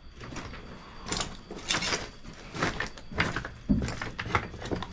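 Footsteps scraping and crunching over rubble on the floor of a burnt-out room, about six uneven steps.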